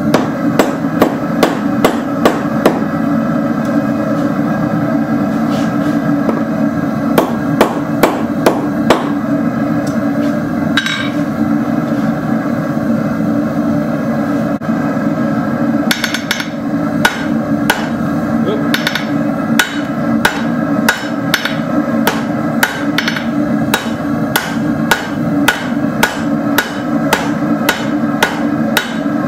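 Blacksmith's hammer striking hot steel rod on an anvil while forging a leaf keychain. The blows come in runs of about two a second, separated by pauses of several seconds. A steady low hum runs underneath.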